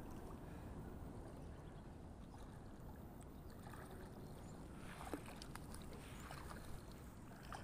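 Faint steady low rumble of water and wind, with a few light clicks and taps about five seconds in.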